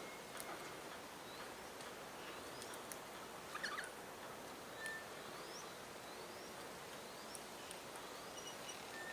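Faint bird calls: short rising notes repeated about once a second over a steady background hiss, with a brief clatter about three and a half seconds in.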